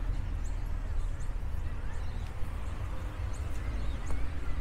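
Outdoor park ambience: a steady low rumble with short high bird chirps now and then.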